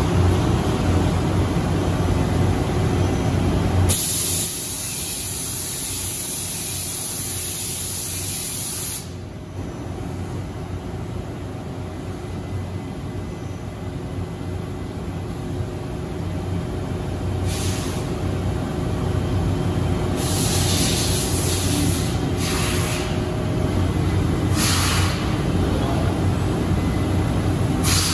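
Steady machine noise from a robot-tended CNC lathe cell, cut through by compressed air hissing. There is one long blast lasting about five seconds, starting about four seconds in, then several short blasts in the second half.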